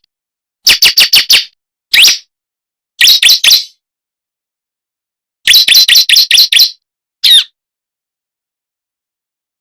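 Bar-winged prinia (ciblek) calls used as a lure call: quick runs of sharp, high chirps. Runs of about four notes alternate with single notes, with a longer run of about nine notes in the middle; the calls stop about two seconds before the end.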